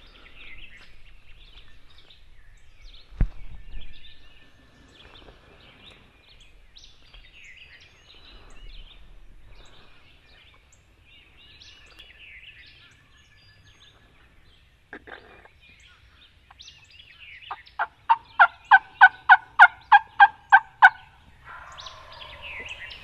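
Turkey yelping near the end: a quick, evenly spaced run of about a dozen loud notes, then a short rattling call. Faint songbird chirps run underneath, with a single knock about three seconds in.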